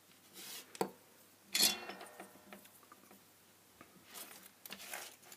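Handling noise on a workbench: a few light clicks and knocks as a dismantled glass filament LED bulb and its wire leads are put down, the loudest knock a little under two seconds in, with a brief ring after it.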